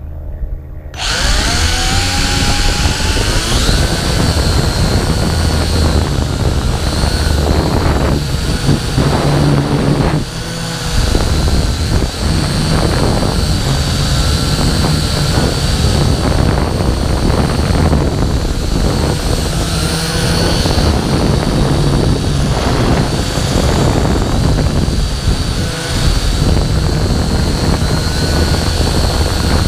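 FPV quadcopter's electric motors and propellers spool up with a rising whine about a second in, then run loud and steady in flight, swelling and easing with the throttle. Heard from the drone's own onboard camera, right next to the props.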